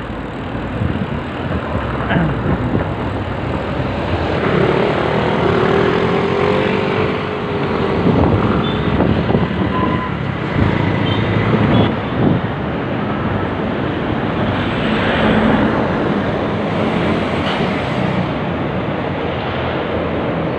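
Road traffic noise heard while riding along a busy city street: a steady rumble of vehicle engines and tyres, mixed with wind noise on the microphone. A brief wavering engine tone rises and falls about five to seven seconds in.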